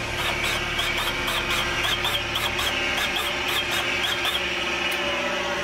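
Main bearing cap cutter running with a steady hum and a rapid train of short high squeaks, about five a second, that stop a little over four seconds in. It is cutting thousandths of an inch off the parting faces of Mopar 440 main caps to close up the main bore diameter.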